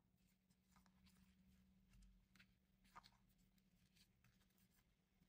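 Near silence: faint rustling and a few soft clicks as hands handle a satin ribbon bow and a metal alligator hair clip, over a faint steady low hum.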